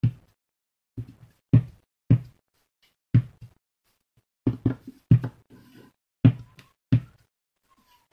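A hand-held stamp knocking repeatedly onto an ink pad and card on a tabletop while stamping a leaf image: about a dozen short knocks, some in quick pairs or triplets.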